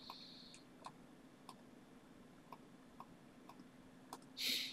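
Faint, scattered computer mouse clicks, about one every half second to a second, over a steady low hum. A short hiss comes near the end.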